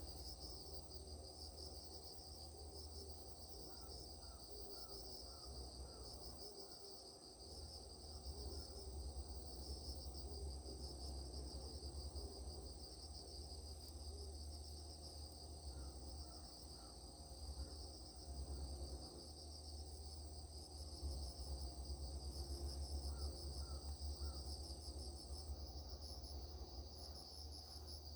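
Insects chirring steadily in a fast pulsing rhythm, with a thin, high, steady whine from another insect that stops near the end, over a low rumble.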